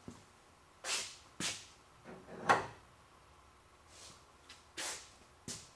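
Handling noises from a car's fuel tank being maneuvered into place under the car on bungee cords: several short scrapes and one sharper knock about two and a half seconds in.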